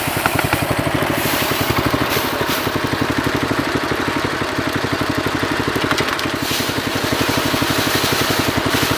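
Small engine running steadily with a fast, even pulse, powering a homemade rice thresher.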